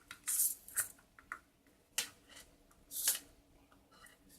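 Hands handling the robot arm and its tied-up wires: a few brief rustles and a couple of sharp clicks.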